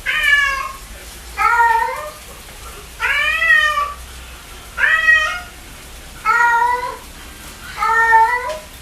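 Domestic cat meowing repeatedly: six drawn-out meows, about one every second and a half.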